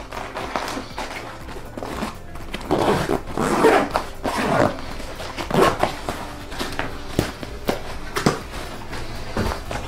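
A nylon diaper backpack being handled and packed: fabric rustling and small knocks as things go into a pocket, with its zipper being worked.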